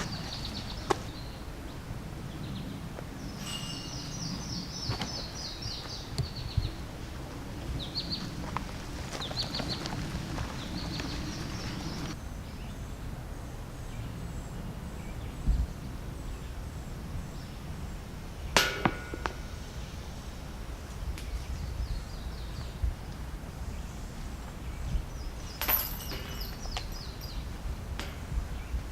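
Outdoor ambience with a steady low wind rumble and birds chirping in short repeated phrases, broken by a few sharp knocks, the loudest about two-thirds of the way through with a short ring.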